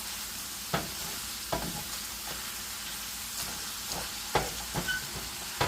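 Ground meat sizzling as it browns in a frying pan, with a nylon meat chopper knocking against the pan a few times as it presses and breaks up the meat.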